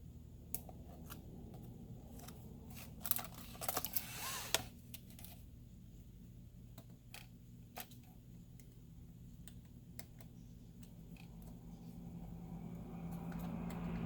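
Scattered light clicks and a short burst of scratching and rustling about three to four and a half seconds in: small plastic laptop parts and cable connectors being handled during reassembly. A steady low hum sits underneath.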